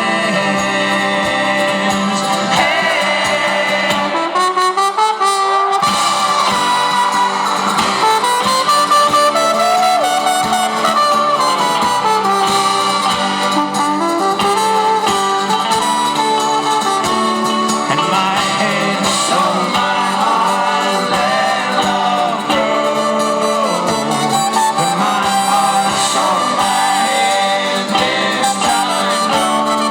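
Live folk-rock band with a horn section playing an instrumental passage: brass melody over a steady kick-drum beat. The low drum and bass drop out for a couple of seconds about four seconds in, then come back.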